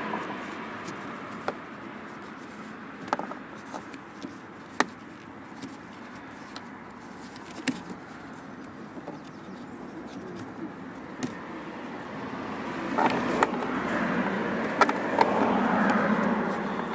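Scattered light clicks and knocks from hands working a car door's wing mirror and its wiring connector free. A passing car's noise swells over the last few seconds.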